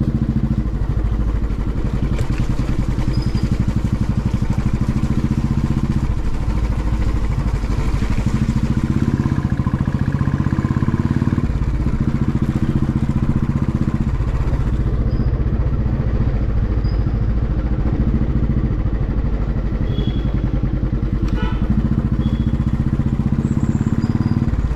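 Motorcycle engine running steadily while riding, a continuous low drone with rumble from the road and wind.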